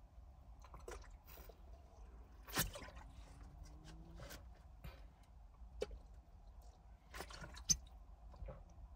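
Quiet drinking sounds: a person swallowing water and handling a plastic water bottle, with scattered soft clicks and crinkles, the loudest about two and a half seconds in and again near the end.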